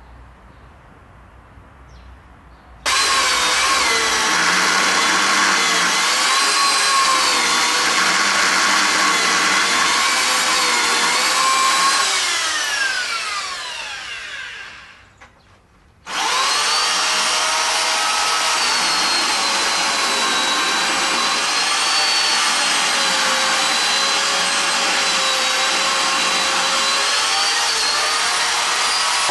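Chainsaw running at high revs while carving dry wood, its pitch wavering as the chain loads and unloads in the cut. It winds down with falling pitch a little before halfway, goes quiet for a moment, then comes back in suddenly at full revs.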